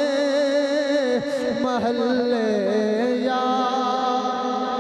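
A man's voice singing a long, drawn-out melismatic note of a naat, the pitch wavering and sliding, then settling into a steady held tone about three seconds in.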